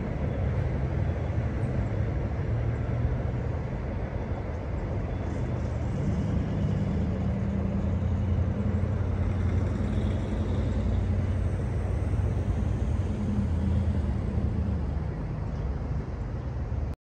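Steady low rumble of a commuter rail diesel locomotive's engine as the train pulls away down the line. The sound stops abruptly just before the end.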